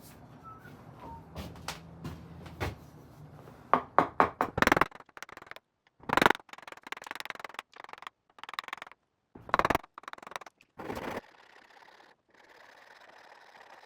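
A run of scattered knocks, clicks and clatters as tools and wood are handled at the bench, densest in the middle, followed by a faint steady hum for the last couple of seconds.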